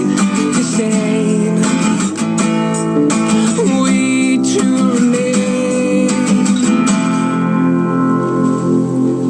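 Music: a guitar-led song by a band, with plucked and strummed guitar and a wavering melody line.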